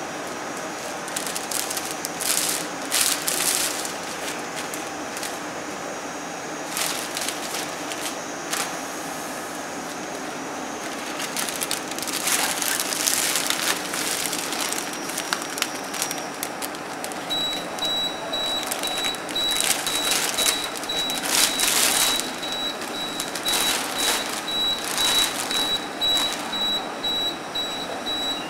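Clear plastic sealing film rustling and crinkling in irregular bursts as it is pulled and threaded through a tray sealer's rollers, over a steady background hum. From a little past halfway a high tone pulses on and off steadily.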